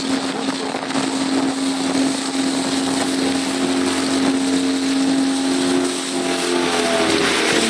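Motorboat engine running with a steady hum under loud wind on the microphone and water rushing past the hull; the hum drops away about six seconds in.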